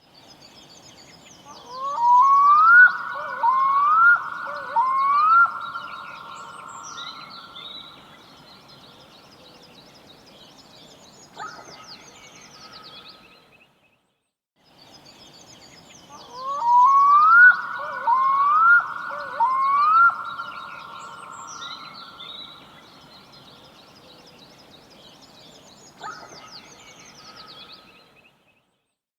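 Black-throated diver (Arctic loon) calling: three quick rising notes that run into a long, drawn-out wail, which slowly fades. The whole sequence is heard twice, with faint high chirping in the background.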